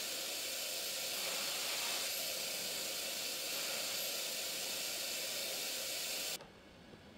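Steady hiss of air through a brush-headed suction nozzle on a corrugated vacuum hose as it is drawn over a car body panel. The hiss cuts off suddenly about six seconds in.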